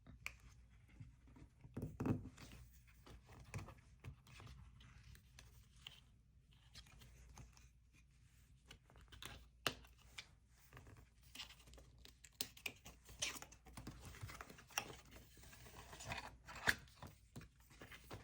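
Faint handling of an Apple Watch's paper-and-cardboard box being opened: scratching, rustling and tearing, with scattered small clicks and taps.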